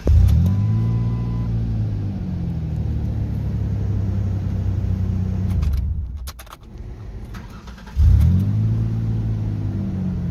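Pickup truck engine started with the ignition key: it catches at once, revs up and settles into a steady idle. It is switched off after about six seconds, a few clicks follow from the key in the ignition, and about eight seconds in it is started again, revs up and idles.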